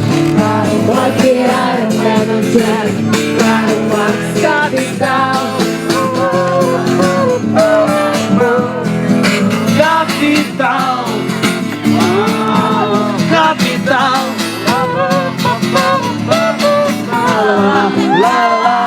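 Acoustic guitar strummed with voices singing a song along to it.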